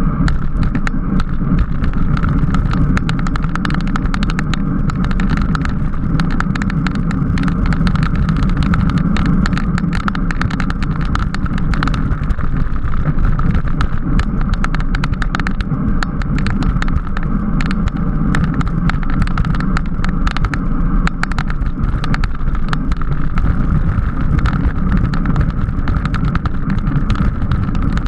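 Steady wind rush and road rumble on a camera riding on a racing bicycle at speed, with frequent small clicks and rattles.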